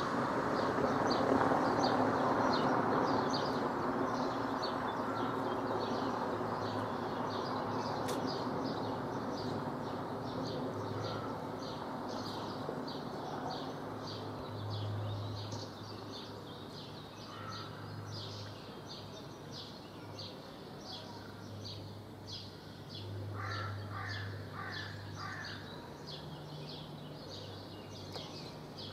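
A bird chirping over and over, short high chirps two or three a second, over a background of outdoor noise that is loudest at the start and dies down through the first half. A few lower calls come in near the end.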